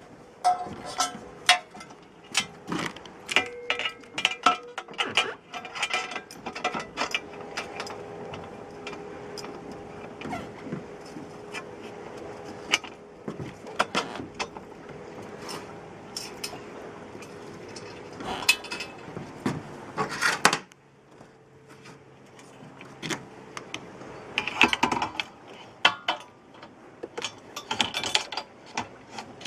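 Clinks, clanks and rattles of metal fittings being handled as a boat's hoist is put together, with a steady hum underneath that stops suddenly about twenty seconds in.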